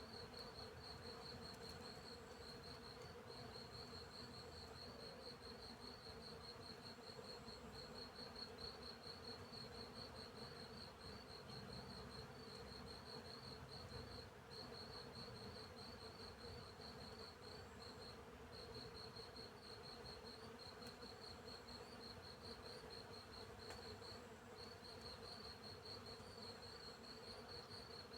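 Field crickets chirping in a continuous fast, high-pitched pulsing trill, with short pauses, over a faint steady hum of bees and bumblebees flying.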